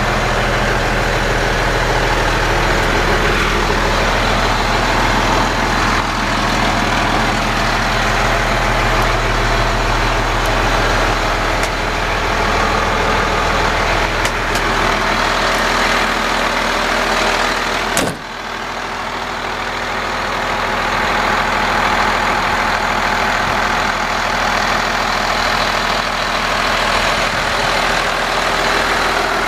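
2002 Freightliner FL80 vactor truck's diesel engine idling steadily. About two-thirds of the way through there is one sharp knock, after which the sound dips briefly and builds back.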